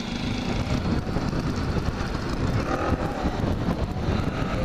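A 50cc moped running as it rides slowly through snow, with rough wind rumble on the microphone.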